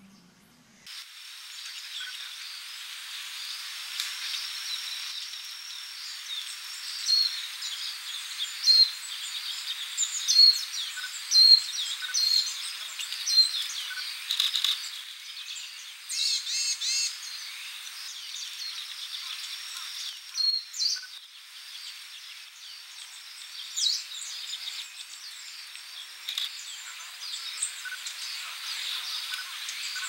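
Wild songbirds chirping and calling over a steady high drone of insects, starting about a second in; a short high note repeats about once a second for a stretch near the middle.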